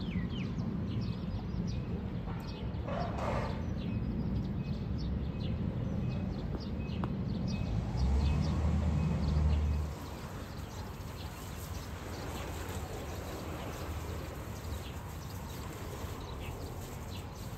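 Small birds chirping over a steady low outdoor rumble. The rumble swells for about two seconds around the middle, then drops off suddenly.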